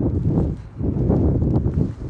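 Snowstorm wind buffeting a phone's microphone: a loud, low rumble that surges and dips unevenly, dropping briefly about a third of the way in.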